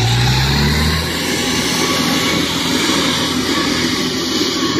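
Rice combine harvester engine running, its pitch rising slightly in the first second, over a steady rushing noise.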